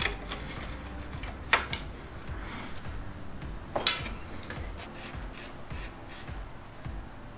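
External bottom bracket bearing cup being threaded by hand into a bike frame's bottom bracket shell, over a spacer ring: light rubbing of metal and plastic parts, with three sharp clicks, one right at the start, one about a second and a half in and one near four seconds.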